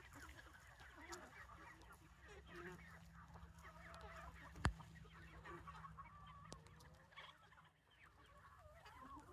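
A flock of hens clucking and calling softly as they forage, many short overlapping calls. A single sharp click about four and a half seconds in.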